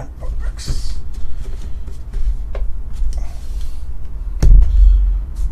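Trading cards being handled and slid, with small clicks and a brief rustle, over a steady low hum. A single sharp thump comes about four and a half seconds in.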